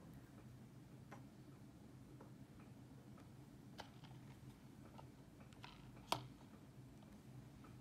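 Faint, scattered taps and clicks as an Apple Pencil and a small cardboard box of Apple Pencil Tips are handled and set down on a wooden table. The loudest is a single sharp tap about six seconds in, over a low steady hum.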